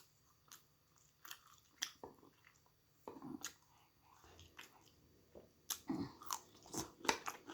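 A person chewing food close to the microphone, with many short wet mouth clicks and smacks and a couple of soft hums.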